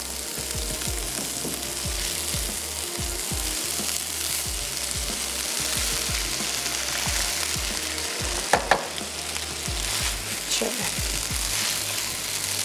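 Rice sizzling in hot oil in a pan while it is stirred and mixed with a flat spoon, with the spoon knocking and scraping against the pan. A sharper clink comes about eight and a half seconds in.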